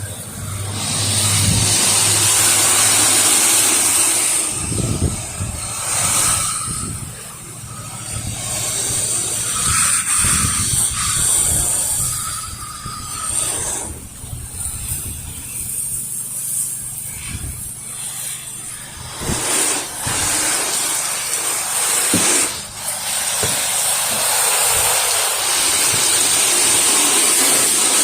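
Pressure washer running: a steady engine hum under the hiss of the water spray, the hiss loud at the start and near the end and dropping away for stretches in between.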